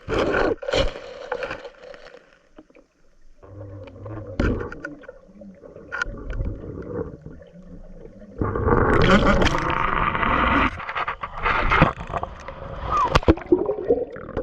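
Muffled water noise and scattered knocks and scrapes on a camera lowered into the water, with a loud rushing stretch of about two seconds past the middle.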